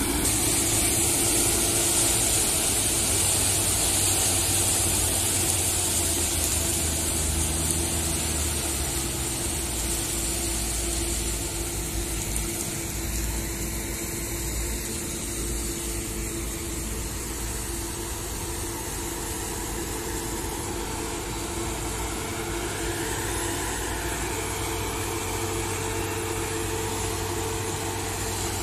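Claas Lexion 660 combine harvester running as it harvests: a steady engine drone under a loud hiss of the threshing machinery, gradually getting quieter. A tractor pulling a grain trailer runs alongside while the combine unloads on the move.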